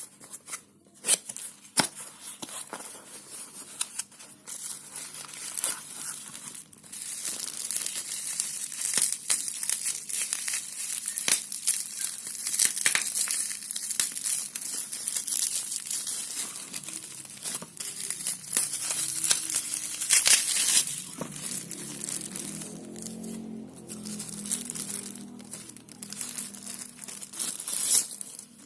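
Packaging being handled: continuous crinkling and rustling with scattered sharp clicks and taps, as a smartwatch box is unpacked.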